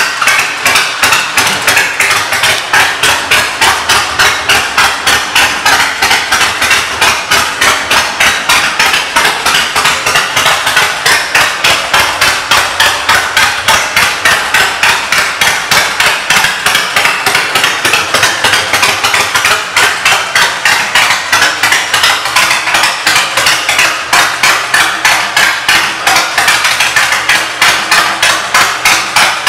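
Honda VTX 1300C's 52-degree V-twin with aftermarket exhaust idling loudly, a steady lumpy beat of about four pulses a second.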